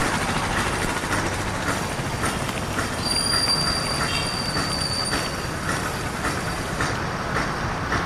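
Steady vehicle noise with a regular clatter, and a thin high-pitched squeal lasting about two seconds from about three seconds in.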